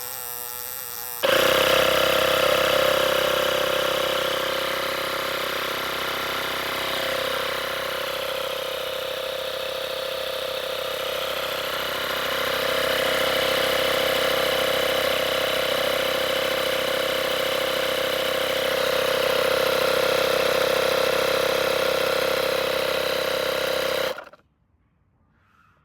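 Tesla tire repair kit's 12-volt electric air compressor running while inflating a tire: a loud, steady hum at a fixed pitch. It gets louder about a second in and stops abruptly near the end when it is switched off.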